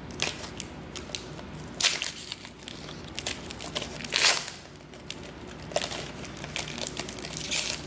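Panini Prizm trading card pack's wrapper crinkling and tearing open by hand, in irregular rustles, with louder crinkles about two and four seconds in.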